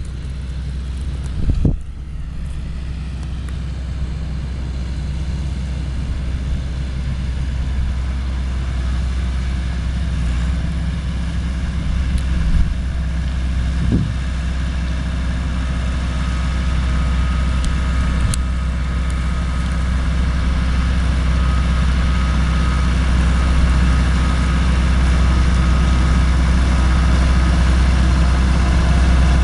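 Massey-Ferguson 390 tractor's diesel engine and the New Holland horizontal-axis shredder it drives, running steadily while mulching a mustard cover crop. A deep, even drone that grows slowly louder, as if the machine is drawing nearer.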